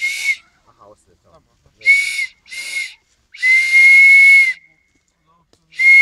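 Improvised whistle blown through cupped hands: breathy, shrill blasts at one steady pitch. Three short toots, then a blast of about a second, and another long one starting near the end.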